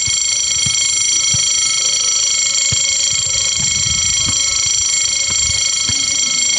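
Level-crossing warning bell ringing loudly and steadily as an electronic ring of several high tones, started abruptly just before. It is the automatic crossing's alarm signalling an approaching train, and the barriers begin to lower near the end.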